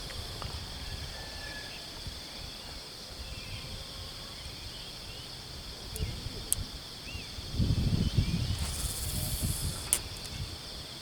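Steady high-pitched chorus of insects, with a few sharp clicks and a spell of low rumbling about eight seconds in.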